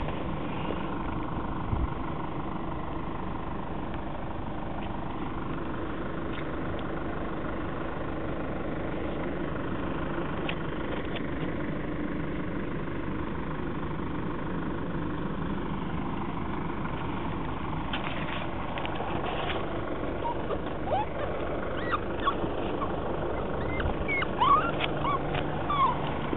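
A steady low mechanical hum, and from about twenty seconds in, a few short high squeaks and whimpers from a small puppy being handled, mixed with scattered handling knocks.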